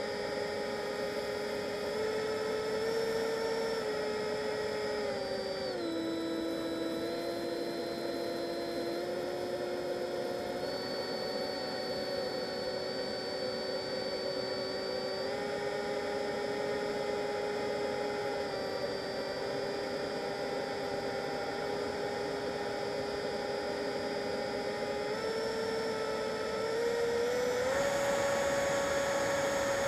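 Twin electric ducted fans of a Freewing F-22 RC jet, heard from a camera on board: a steady whine over rushing air. The pitch steps down about six seconds in, back up about fifteen seconds in, and up again and louder near the end as the throttle changes.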